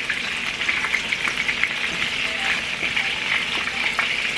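Meatballs frying in oil in a pan: a steady sizzle with many small crackling pops.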